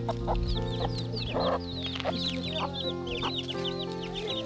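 Chicks peeping around a hen: many short, high cheeps, several a second, over steady background music.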